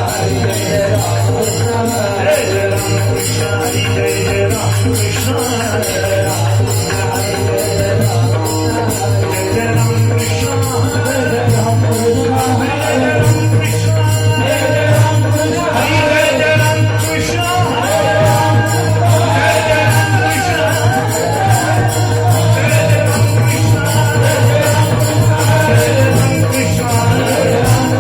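Marathi devotional bhajan music: small hand cymbals jingle in a steady rhythm over a wavering melody and a steady low drone.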